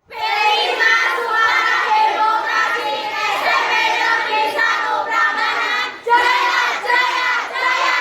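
A group of young voices singing together, with a short break about six seconds in.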